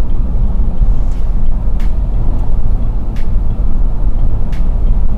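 Suzuki Carry running at road speed, heard from inside the cab: a loud, unsteady low rumble of engine and tyre noise. A faint sharp click comes every second or so.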